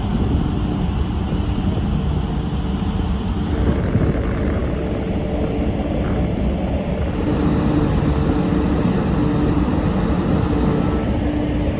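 Wind buffeting the microphone on the open deck of the ferry Excellent under way, over the steady hum of the ship's engines and funnel, which carries a couple of held droning tones.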